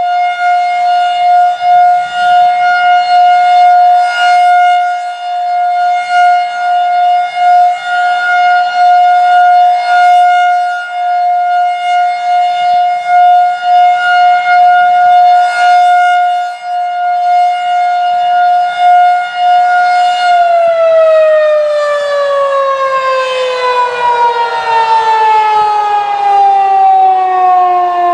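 Federal Signal 2001-DC rotating tornado siren sounding its steady Alert tone, the loudness swelling and fading every few seconds as the slowly rotating head (about 10 RPM) sweeps past. About 20 seconds in the tone begins falling steadily in pitch as the siren winds down at the end of the Alert signal.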